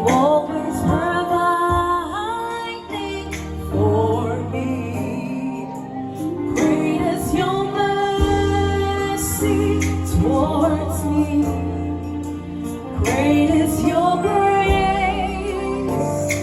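A woman singing long, held notes that bend and slide, over steady sustained chords and a deep bass line: a vocalist's sound check through the venue's sound system.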